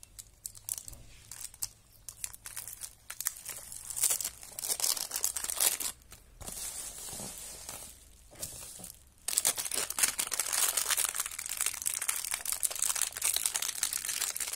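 Clear plastic packaging crinkling and rustling as it is handled, in irregular bursts at first and almost without a break from about two-thirds of the way in.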